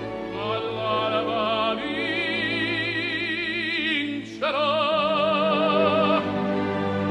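Operatic singing over orchestral accompaniment: a voice holding long notes with wide vibrato, with a short break about four seconds in before a new held note.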